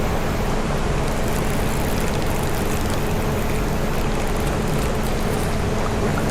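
Steady rushing noise of flowing creek water, with a faint, even hum underneath.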